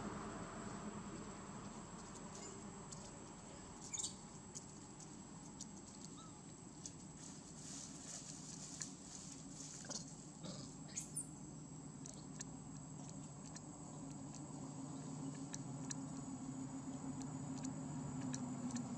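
Faint crackling of dry leaves as monkeys shift on the leaf litter: scattered small clicks over a low steady hum, with a short high falling squeak about eleven seconds in.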